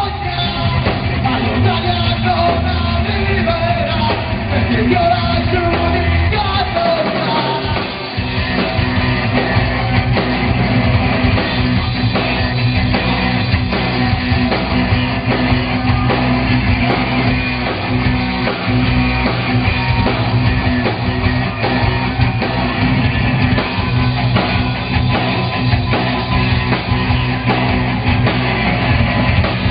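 Live rock band playing loudly on stage, a singer's voice over the band for the first several seconds. After a short dip about eight seconds in, the band carries on without singing.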